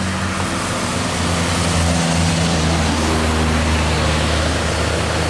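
Heavy diesel truck engine labouring up a steep climb: a steady low drone that gets a little louder about a second and a half in.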